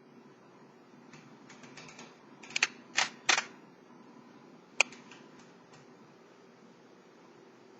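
1954 Underwood Leader manual typewriter clacking: a few faint clicks, then three loud sharp strikes in quick succession about two and a half seconds in and one more sharp click near five seconds.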